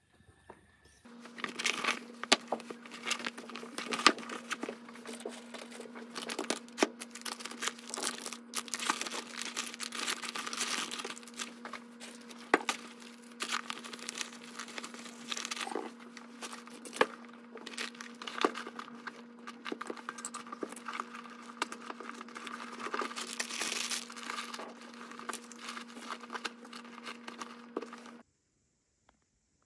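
Plastic snack packaging crinkling and rustling as it is handled and packed, with many sharp clicks and a steady low hum underneath. It stops abruptly near the end.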